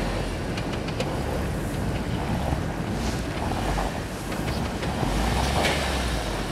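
UAZ Patriot SUV's engine running under load as it pushes forward through deep snow, with wind buffeting the microphone.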